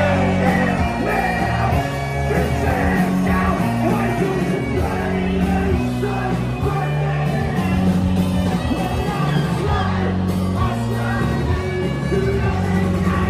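Live rock band playing loud over the stage speakers, a singer shouting and singing into the microphone over a bass line that steps between held notes.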